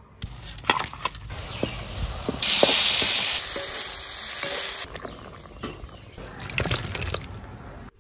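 Cooking sounds one after another: a few knocks of a stone pestle crushing a spice on a stone grinding slab, then frying in a wok, with a loud burst of sizzling for about a second, and a wooden spatula stirring and scraping through the spiced mix.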